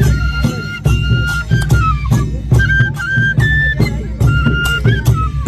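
Live folk music on a wooden flute and a double-headed barrel drum beaten with sticks: the flute plays long held notes that step between pitches while the drum keeps a steady beat.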